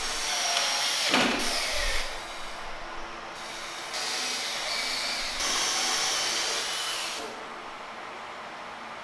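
A power tool running in two spells of a few seconds each, with a short stop after about two seconds.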